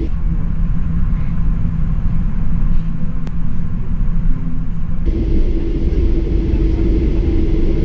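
Steady low rumble inside the cabin of a taxiing Boeing 737-800, its CFM56-7 jet engines at low power, with a steady hum. About five seconds in the hum changes abruptly to a higher steady tone.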